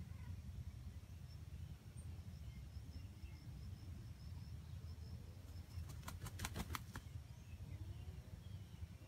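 Quiet outdoor woodland ambience with a steady low rumble and a faint high chirp repeating about three times a second. About six seconds in comes a quick run of about six sharp clicks.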